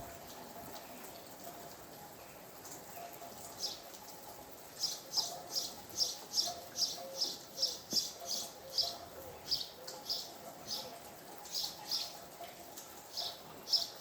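A songbird chirping in a quick series of short high notes, about two or three a second, starting about a third of the way in and thinning out near the end, over a faint steady hiss of rain.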